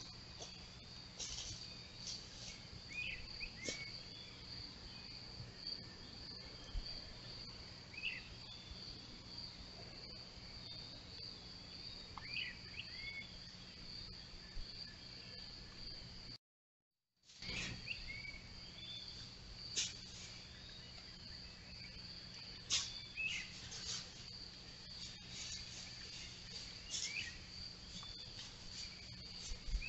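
Night insects trilling steadily on one high pitch, with short bird chirps now and then. The sound drops out completely for about a second around the middle, where two trail-camera clips are joined.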